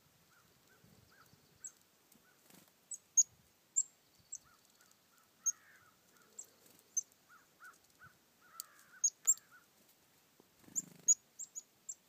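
Black-capped chickadees calling close by: many short, sharp high chips that drop quickly in pitch, some very loud, with a series of lower, repeated short notes from another bird behind them.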